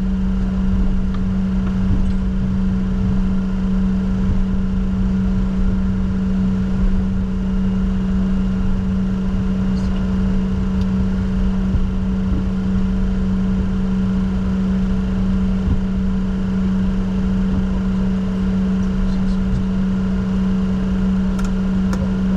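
Steady cockpit hum of a Bombardier Challenger 604 business jet: constant engine and airflow noise with a strong low drone that holds the same pitch throughout.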